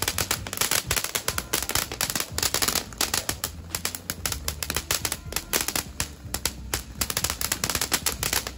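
Small consumer fireworks crackling and popping in a fast, dense, irregular stream that keeps going without a break.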